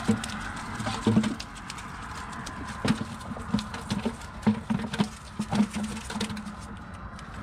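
Freshly caught mullet flopping on a wet concrete walkway and thumping against a plastic bucket: an irregular run of wet slaps and hollow knocks, several a second.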